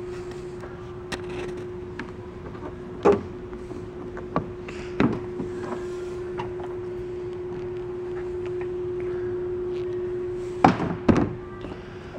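Hard plastic thunks as the hood over a utility vehicle's storage compartment is opened and shut. There is one loud thunk about three seconds in, two lighter ones shortly after, and a loud double thunk near the end as it closes, over a steady hum.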